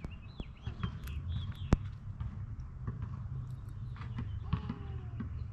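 A few sharp knocks, the loudest about two seconds in, with a steady low hum joining soon after.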